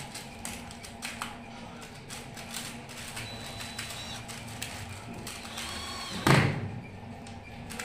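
Small clicks and taps of screws and a cordless drill being handled on a laminated table panel while fitting metal bracket connectors. A brief whine of the drill driving a screw comes just before a single loud thump about six seconds in.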